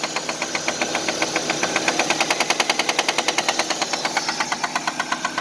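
1999 Nissan Altima's 2.4-litre four-cylinder engine running with a rapid, even knock, about ten a second, deep inside the engine: rod knock from a worn connecting-rod bearing.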